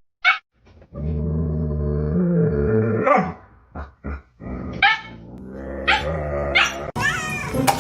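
A dog growling steadily, with several short, high-pitched barks breaking in over the last few seconds.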